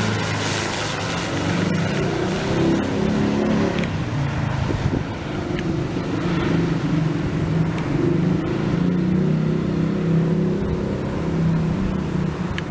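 Twin turboprop engines and propellers of a CASA C-212 Aviocar military transport droning as it rolls along the runway after landing. The drone is low and wavering.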